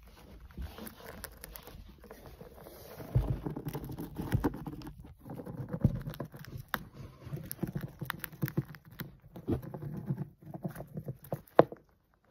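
Dwarf hamster gnawing and crunching a peanut in its shell, amid rustling paper bedding: a dense run of small sharp crackles and clicks, with one louder crack near the end.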